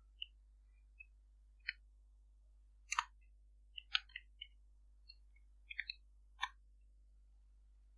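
Faint clicks of computer keyboard keys being typed: about a dozen irregular, spaced-out keystrokes, with a few louder ones around the middle.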